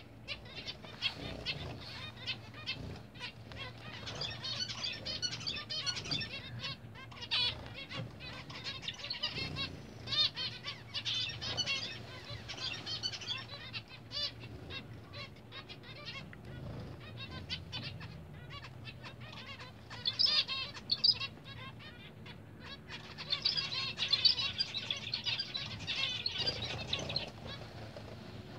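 A flock of zebra finches calling and singing in a dense, continuous stream of short high chirps, louder in bunches about twenty and twenty-five seconds in, with wing flutters from birds bathing.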